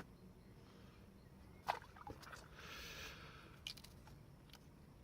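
A few small clicks and knocks, with a brief wet trickle of dripping water near the middle, as a fishing magnet and its wet scrap-metal finds are handled.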